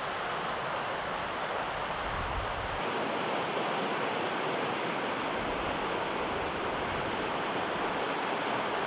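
Steady rushing of white water in river rapids: an even noise without any pitch, growing a little fuller about three seconds in.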